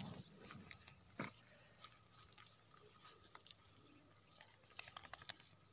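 Near silence with scattered faint clicks from dogs and cats eating their food, a sharper click about a second in and a few more near the end.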